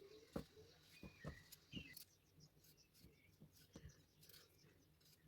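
Near silence, with faint scattered clicks and taps and a few faint short chirps.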